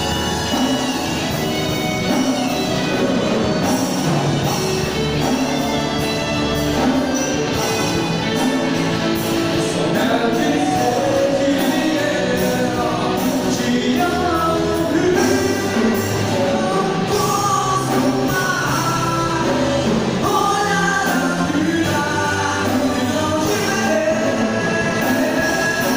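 Live gospel rock band playing: drums, bass, keyboards and guitars under a sung melody, at a steady full level.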